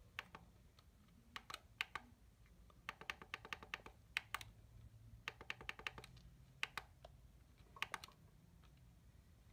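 Small plastic buttons on an Eton ZoneGuard Plus weather radio's navigation pad clicking as they are pressed to set the clock: scattered single clicks, and twice a quick run of rapid presses.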